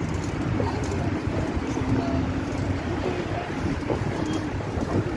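Steady low rumbling noise of wind buffeting and handling on the phone's microphone, with no clear event standing out.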